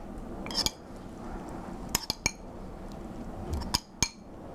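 Metal spoon clinking against a small glass bowl of salad dressing as it is spooned out, about five short, ringing clinks spread through the few seconds.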